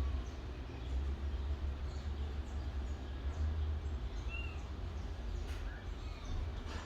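Kitten giving several faint, short, high-pitched mews, the clearest about four seconds in, over a steady low rumble.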